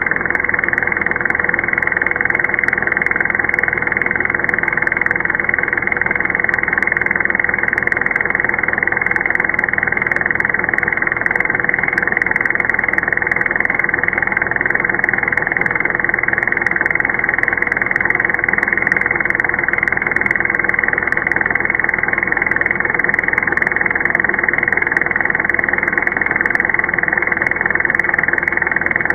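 Power drill motor and gearbox running steadily, spinning a mechanical revolution counter in its chuck, slowed down in slow motion: an even drone with one steady tone through it.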